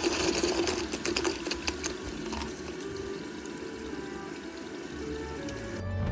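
Water pouring and splashing, with a steady low hum underneath; it cuts off suddenly near the end.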